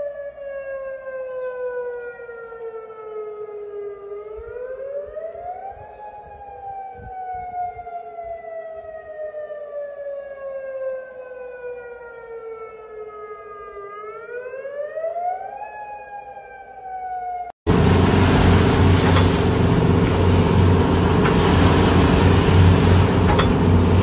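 Outdoor tsunami warning siren wailing. Its pitch rises quickly for about two seconds, then falls slowly for about eight, and this happens twice. About eighteen seconds in, the siren cuts off abruptly into a loud, even roar of noise.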